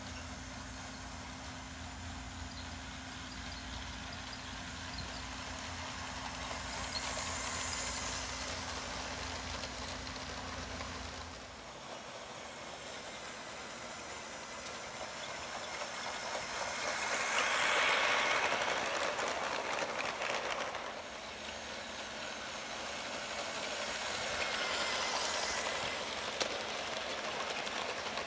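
Motorized LEGO train running on plastic LEGO track, its noise swelling and fading three times as it passes close by, loudest at the middle pass. A steady low hum underlies the first twelve seconds and stops suddenly.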